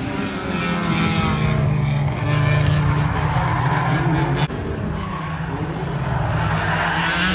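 2-litre banger race cars' engines revving hard and unevenly, rising and falling, with tyres skidding on tarmac as the cars push against each other in a destruction derby.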